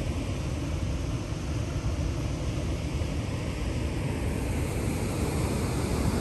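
Steady rushing roar of water flowing out through the dam's spillway channel, an even noise heaviest in the low range, with no breaks.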